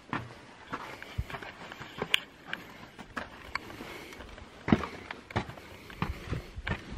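Footsteps on sandy ground and sandstone, irregular scuffs and taps about one or two a second, with a few sharper knocks.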